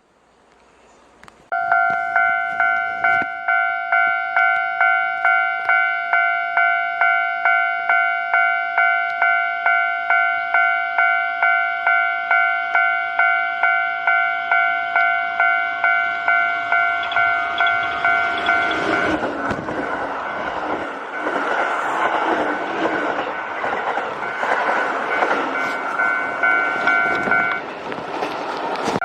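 Japanese level crossing warning bell starting up and ringing in an even repeating 'kan-kan' rhythm. A Kintetsu Osaka Line electric train then rushes through the crossing for about nine seconds, drowning the bell before it is heard again near the end.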